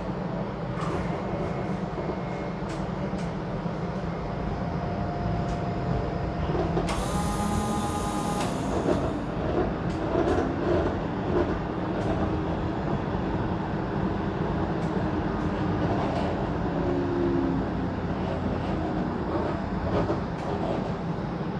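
Streetcar running on its rails: a steady low rumble with scattered clicks. About seven seconds in there is a short burst of hiss, then a whine that rises in pitch as the car picks up speed.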